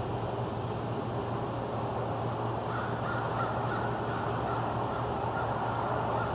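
Steady high-pitched insect chorus with a low steady hum beneath it, and a few faint short calls a bit before the middle, like a distant crow cawing.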